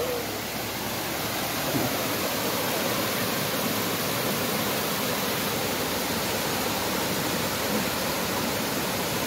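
Water rushing steadily down a small stepped waterfall, running over a series of rock ledges, heard as an even, unbroken hiss.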